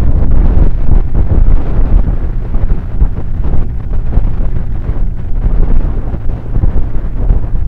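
Wind buffeting an action camera's microphone on a moving motorcycle: a loud, fluttering low rumble, with the motorcycle's engine and road noise beneath it.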